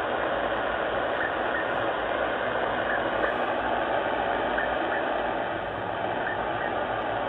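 Sangean ATS-909X2 shortwave receiver in upper-sideband mode giving a steady hiss of static on the 5550 kHz aeronautical channel, with no voice coming through between transmissions.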